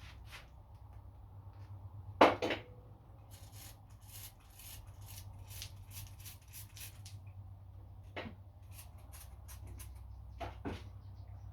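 Metal hand-tool work on a small-engine crankshaft while its thread is being tapped. A sharp double knock comes about two seconds in, then a run of light, quick clicking ticks and a few scattered knocks, over a steady low hum.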